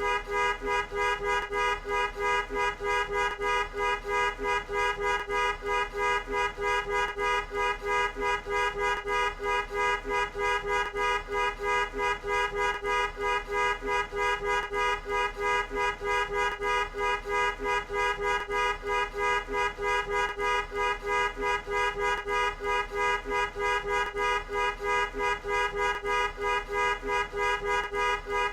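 Car horn honked over and over in short, even beeps, about three a second without a break. Each beep sounds two notes together.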